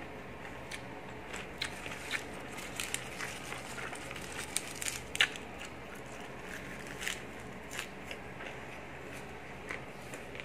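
A person chewing and biting crisp raw vegetables, a green lettuce leaf among them: irregular crunches and crackles, the sharpest about halfway through.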